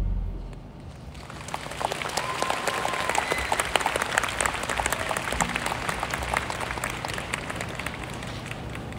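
Concert audience applauding at the end of a song, as the band's last note dies away. The clapping builds about a second in, is thickest a few seconds in, then thins out, with a brief whoop from the crowd partway through.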